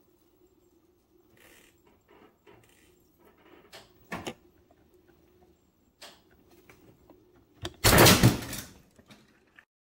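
A microballoon-filled resin glide bait under a rising pull in a tensile test, giving small ticks and creaks as the load builds. About eight seconds in it gives way with a sudden sharp crack, followed by a brief loud clatter as the pulled hardware springs free.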